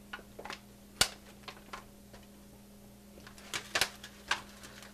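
Scattered clicks and clinks of a fork against a foil-lined roasting pan as a pork roast is worked out of it, the sharpest about a second in and a quick cluster near the end. A steady low hum runs underneath.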